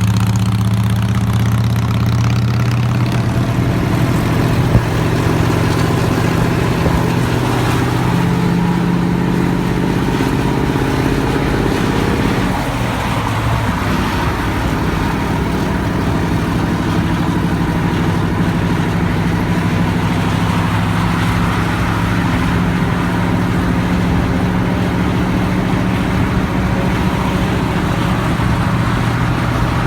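Mercedes-Benz V8 turbo-diesel of a Setra 228DT double-decker bus running under steady load at road speed, with turbo whistle. The engine note drops away briefly about 13 seconds in, then settles back to a steady pull.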